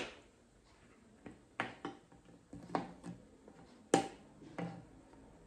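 Plastic 1.5-litre water bottle handled and its screw cap twisted open: a series of sharp clicks and crackles of thin plastic, the loudest about four seconds in.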